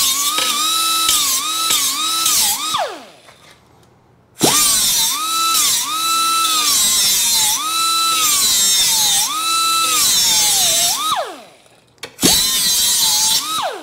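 Small right-angle die grinder with a disc grinding the rusted steel edge of a motorcycle seat pan: a high whine that dips in pitch each time the disc bites the metal and rises again as it eases off. It winds down and stops about three seconds in, starts again a second or so later and runs until it winds down near eleven seconds, then gives one more short run near the end.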